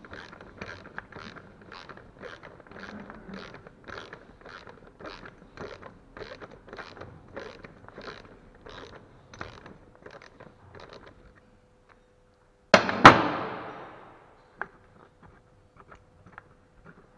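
Ratchet wrench on an 18 mm socket clicking steadily, about three clicks a second, while unscrewing the bolt from the engine mount bracket held in a vise. The clicking stops about eleven seconds in; then comes a single loud sharp knock that rings off over about a second, followed by a few faint ticks.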